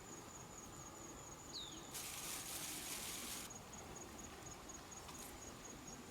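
An insect chirping in a steady, even run of rapid high pulses, with a brief hiss of noise for about a second and a half starting two seconds in.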